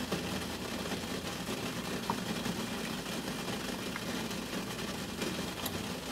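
Steady hum and hiss from the kitchen around a stainless steel stovetop steamer pot. A couple of faint clicks come from the ladle and batter bowl as batter is spooned and poured into silicone cups.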